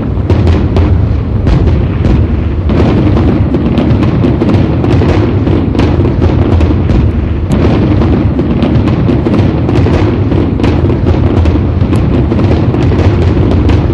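A dense New Year's fireworks barrage: many overlapping bangs, pops and crackles over a continuous loud rumble, with no pause between blasts.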